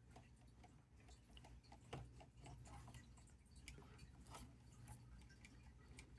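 Faint, irregular small clicks and ticks of plastic parts as the front end of an Axial SCX24 1/24-scale crawler is handled and wiggled.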